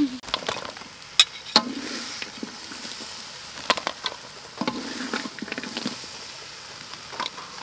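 Metal spatula and spoon clinking and scraping against a wok and a steel serving tray as fried chicken and banana slices are dished out: scattered sharp clinks over a faint steady hiss.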